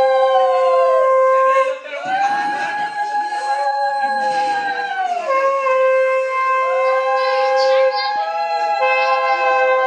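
Conch shells (shankha) blown together in long, steady held blasts at two different pitches. The blasts break briefly for breath about two, five and eight seconds in, sounding during a Bengali wedding turmeric ritual.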